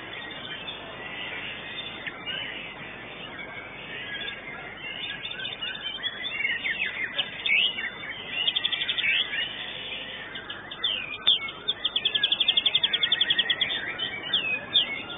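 White-rumped shama (murai batu) singing a varied song of whistles and sweeping notes, with fast rattling trills a little past halfway and again near the end.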